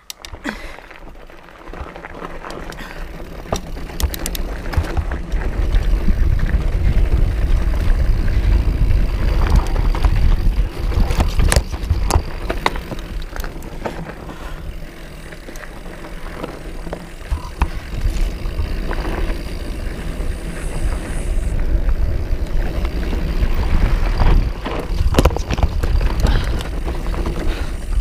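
Specialized Rhyme FSR plus-tyre mountain bike riding over a rocky dirt and gravel trail: wind buffets the handlebar-mounted microphone in a heavy rumble, while the tyres crunch over stones and the bike clicks and clatters. It grows louder about four seconds in.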